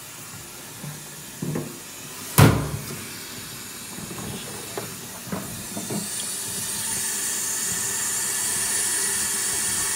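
A sharp knock about two and a half seconds in and a few lighter clicks, then from about six seconds a steady hiss of rushing water that builds toward the end: a 1980s Dudley Elite low-level toilet cistern being flushed.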